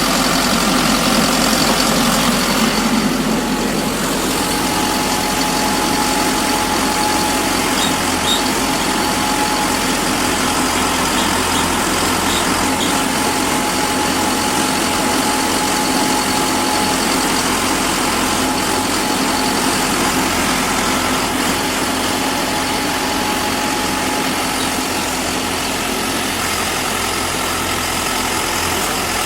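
Pile driver's engine running steadily, with no hammer blows. A thin, steady whine sits above the engine noise from about four seconds in until past the middle.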